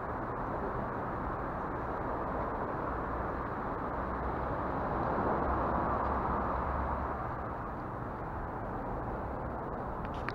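Steady rumble of city traffic, swelling a little about halfway through and easing off again.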